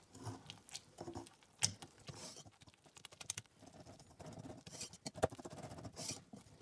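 Wire whisk beating thick, still-lumpy waffle batter in a bowl: quick, irregular wet ticks and patters of the wires stirring the batter and tapping the bowl.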